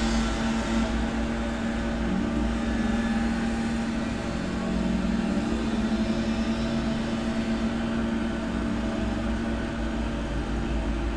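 Gardening machinery's engine running steadily outside, heard from inside a room, with a steady hum and low rumble; its pitch dips slightly for a couple of seconds near the middle.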